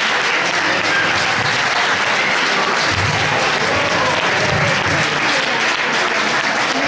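A room of wedding guests applauding steadily, clapping by many hands at once.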